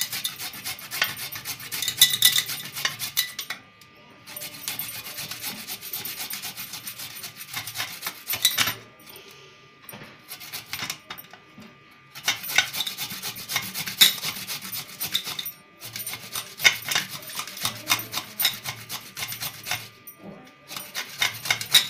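Fresh ginger being grated on a stainless-steel hand grater: rapid back-and-forth rasping strokes, stopping for short pauses now and then.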